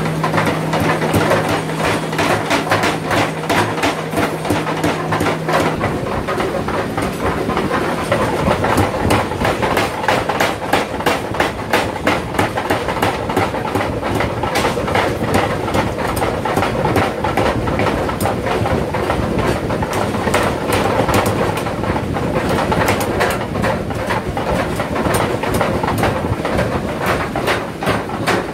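Mechanical power hammer forging a red-hot steel billet, striking with rapid, evenly repeated blows. A steady low hum runs under the blows and stops about six seconds in.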